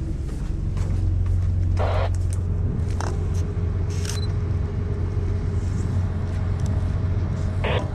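Steady low rumble of wind buffeting the microphone on a ship's exposed upper deck, with two short rushing gusts and a few light clicks.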